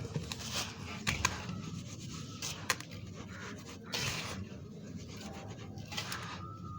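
Wet sand and cement mix being stirred just after water has been added: irregular gritty scraping and rubbing, with a few sharp clicks.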